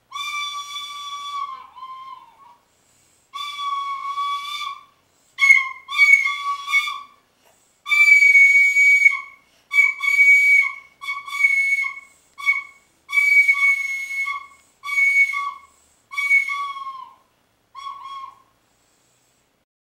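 A child blowing a small toy trumpet, tooting one high note over and over: a few long blasts, then a run of short toots, some dipping in pitch at the end.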